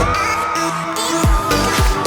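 Electronic dance-pop music with a steady beat of deep, booming kick drums. The kicks drop out for about a second, leaving a held melody line, then come back in.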